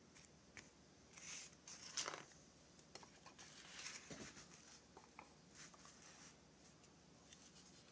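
Faint handling noises as a chainsaw crankcase is shifted and turned on a workbench: light rustling and small clicks and knocks, the sharpest about two seconds in.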